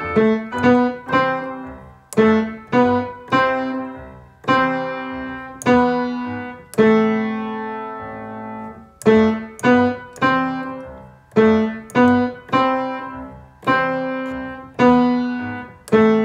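Piano playing a simple melody at a steady beat. Single struck notes ring and fade, in quick runs of short notes broken by longer held notes.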